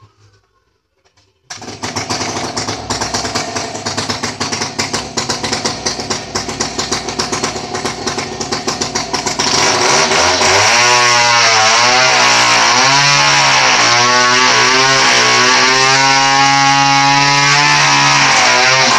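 Two-stroke chainsaw starting up about a second and a half in and running unevenly at low speed, then opened up to full throttle about halfway through, its high engine note wavering up and down.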